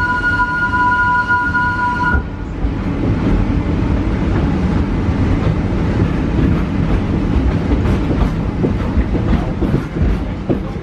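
Wildlife Express steam train pulling out: its whistle holds a steady two-note chord until about two seconds in. Then the coach rumbles and clatters over the track as the train gets under way.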